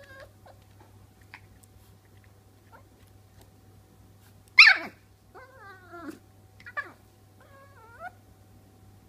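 Norfolk Terrier puppy play-barking at a hairbrush. One loud, sharp yap comes about halfway through, then three shorter, whiny yips over the next few seconds.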